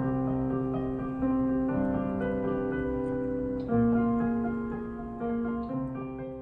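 Digital piano played slowly: sustained chords, a new one struck every second or two, the loudest just past halfway.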